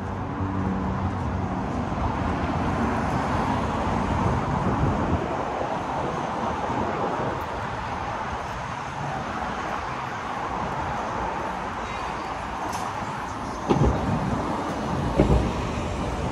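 Steady city street traffic, with cars and other vehicles running past and an engine's low hum in the first second or so. Near the end come two sharp thumps about a second and a half apart, the loudest sounds here.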